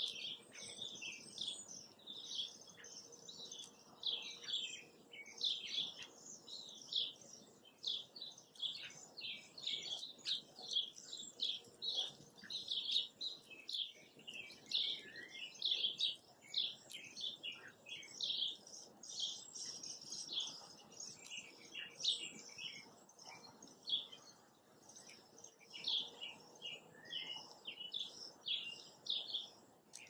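Small birds chirping in a dense chorus: many short, high notes overlap with hardly a pause.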